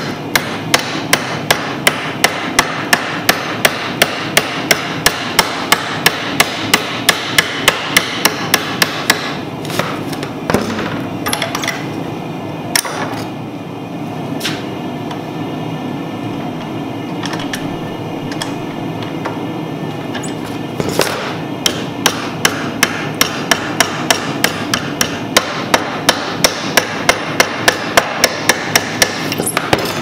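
Blacksmith's hammer striking red-hot angle iron clamped in a bench vise, in rapid, even blows about three a second. The hammering slows to a few scattered strikes for about ten seconds midway, then picks up again. A steady background noise sits underneath.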